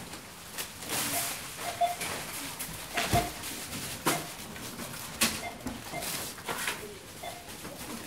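Supermarket checkout barcode scanner giving short single beeps at irregular intervals, a second or more apart, among knocks and rustles of items being handled at the till.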